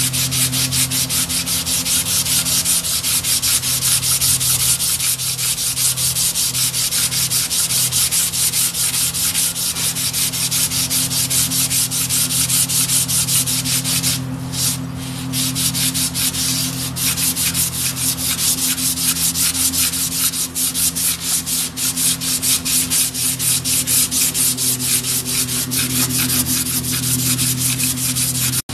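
A strip of Scotch-Brite abrasive pulled rapidly back and forth around a Ford 460 crankshaft's rod journal, shoeshine-style: quick, even rubbing strokes with a short pause about halfway. This is the final polishing stage, taking out scratches and pitting on the journal.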